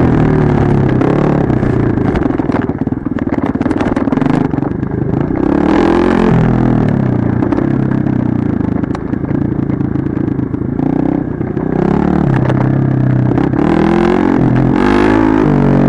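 Dirt bike engine running as it is ridden, revs repeatedly rising and falling, with scattered clattering from the bike over a rough track.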